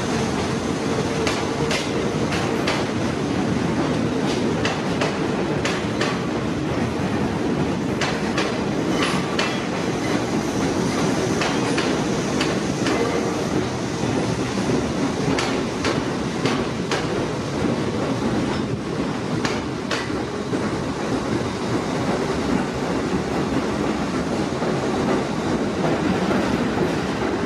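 NYC subway work train of retired R32 and R42 cars hauling garbage flatcars, rolling past on elevated track: a steady rumble of steel wheels on rail, with many irregular clicks and clanks as the wheels cross rail joints.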